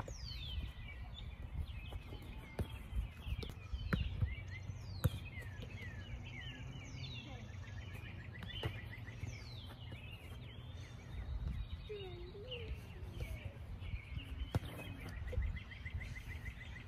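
Songbirds chirping and trilling over a low wind rumble on the microphone, with a few sharp thuds of a soccer ball being kicked and headed.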